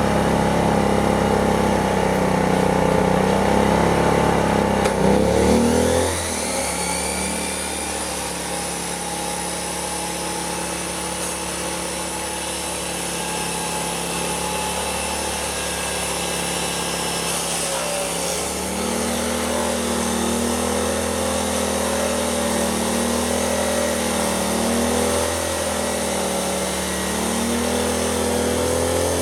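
Predator 2500 inverter generator's engine running as a metal-cutting chop saw spins up with a rising whine about six seconds in. About two-thirds of the way through, the generator's engine speeds up under the added load while the saw takes on the cut through steel.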